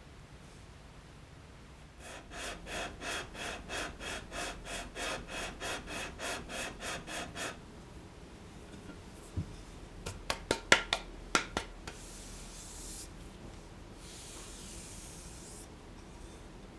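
Wooden body of a Japanese kanna plane rubbed back and forth on abrasive paper over a glass plate, about four quick scraping strokes a second for some five seconds, to flatten the plane's sole. A few seconds later comes a quick cluster of sharp knocks, the loudest sound here.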